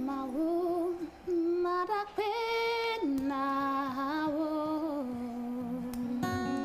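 A woman singing a slow song, holding long notes with a slight waver, over acoustic guitar accompaniment.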